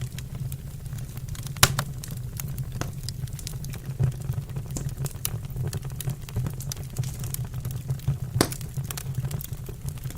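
Wood fire burning in a fireplace: a steady low rumble under frequent sharp crackles and pops, with a loud pop about one and a half seconds in and another about eight seconds in.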